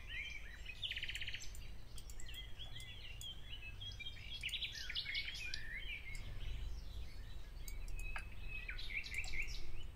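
Small birds chirping in the background: many short, high, twittering chirps over a low steady hum.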